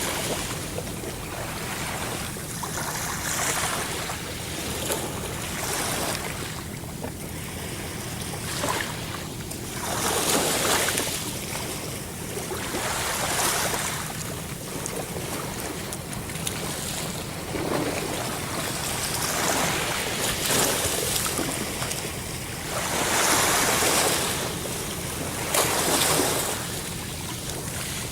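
Ocean waves breaking and washing on a shore, a steady surf with a rushing swell every two to four seconds.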